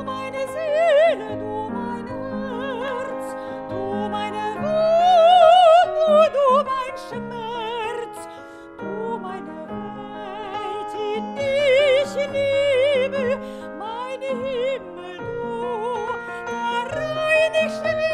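Soprano singing in operatic style with a wide vibrato, accompanied by piano; the voice swells to a loud held high note about five seconds in.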